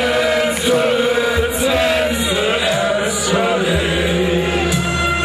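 Crowd of football supporters singing a chant together in unison, with music playing over loudspeakers.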